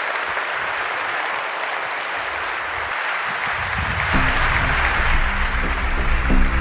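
Large audience applauding steadily. About four seconds in, music with a low steady bass comes in under the clapping.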